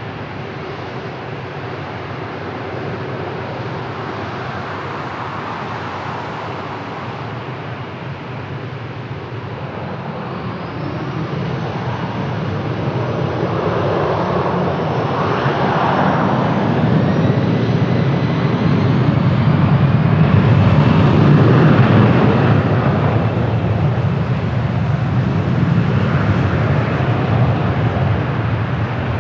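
Airbus A321-200 jet engines at takeoff power. The jet noise builds from about a third of the way in, with a faint whine rising in pitch, is loudest about two-thirds through, then eases slightly.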